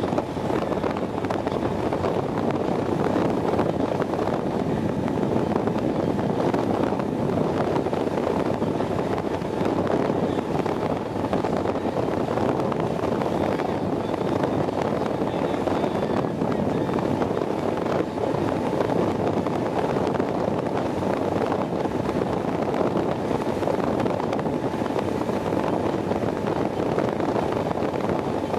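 A 29-foot Maxum cruiser running steadily across open sea: a constant engine drone mixed with the rush of wind and water past the hull.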